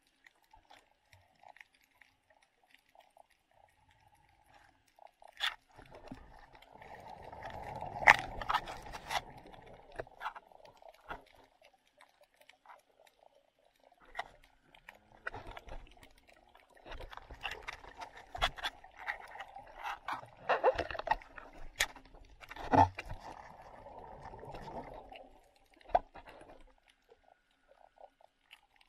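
Underwater sound of a snorkeler swimming over a reef: muffled water and bubbling noise in two long stretches, with scattered sharp clicks and knocks. The loudest click comes about eight seconds in.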